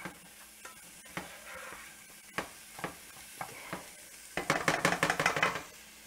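Silicone spatula stirring diced onion and poblano pepper in a skillet, with scattered taps and scrapes against the pan over a faint sizzle. Past the middle comes a rapid burst of clicks lasting about a second, louder than the stirring.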